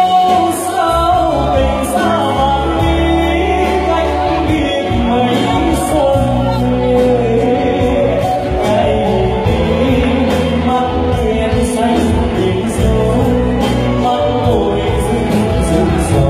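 A male singer sings a Vietnamese song into a handheld microphone, backed by a live band with guitar.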